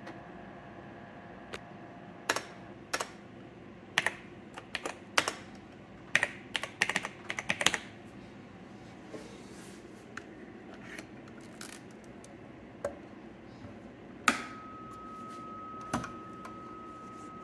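Keystrokes on a Zenith Data Systems laptop keyboard, single presses and quick runs of typing as MS-DOS 3.20 prompts are answered. Near the end a loud click is followed by a steady single high tone that carries on.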